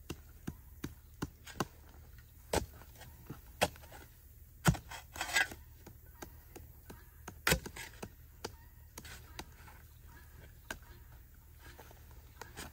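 Irregular sharp knocks and thuds, as of hard objects being handled and set down, the loudest about four and a half and seven and a half seconds in, with a brief scrape just after the first of these.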